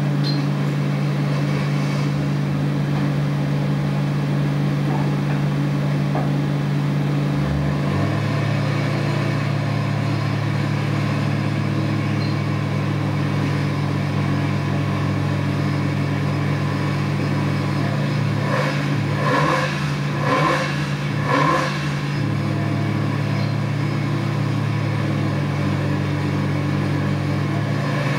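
Isuzu G180 four-cylinder engine running steadily on an engine dynamometer at around 3,000 rpm, heard from the control room through the cell's glass. Its low note changes about eight seconds in.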